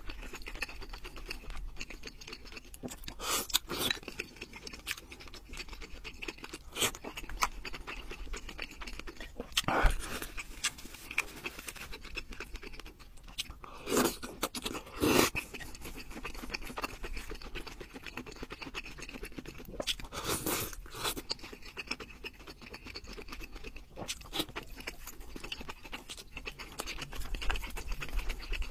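Close-up eating sounds: chewing and slurping of noodles and broth, irregular and wet, with a few louder slurps through the middle.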